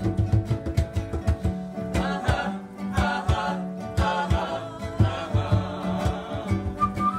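Live acoustic band music: acoustic guitar and a hand drum keeping a steady beat, with several voices singing together from about two seconds in. A small flute comes back in near the end.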